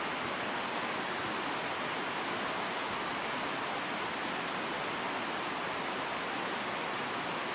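Steady, even rushing noise with no separate events, such as knocks or calls.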